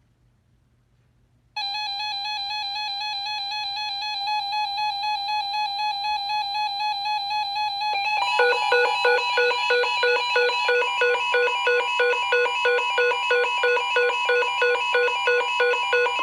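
Electronic weather-alert tones: a steady buzzy tone starts about 1.5 s in. About 8 s in it gives way to a higher steady alarm tone mixed with a beep pulsing about twice a second, the alert signal that comes before a new NOAA Weather Radio warning message.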